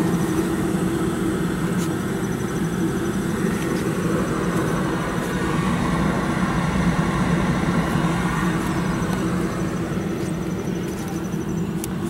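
Packaged gas heating unit running steadily on high-stage heat with its variable-speed indoor blower, giving a constant low mechanical hum.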